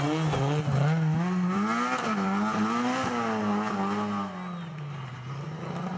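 Rally car engine revving hard as the car passes and pulls away, its pitch rising and falling several times. It grows fainter after about four seconds.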